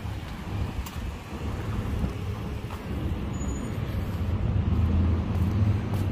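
A car engine running close by over street traffic noise: a steady low rumble that grows a little louder and more tonal over the last couple of seconds.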